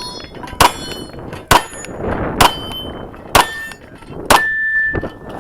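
Kahr CW9 9mm pistol fired five times at a steady pace, about one shot a second. Thin metallic ringing follows several shots, with a longer ring after the last: steel targets being hit.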